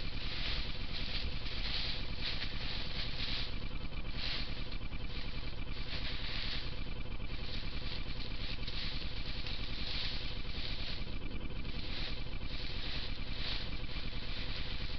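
Steady hiss and low hum from a trail camera's own microphone and electronics, with a faint steady high whine running through it.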